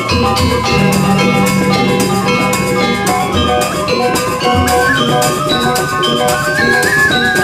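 Balinese gamelan playing: struck metal-keyed metallophones ringing over drums, in a steady, fast beat.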